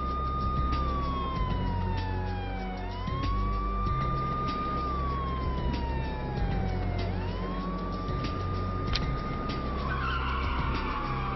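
Police car siren wailing: each cycle rises quickly, holds high, then slides slowly down, repeating about every four seconds over a steady low rumble. A short rushing hiss comes in near the end.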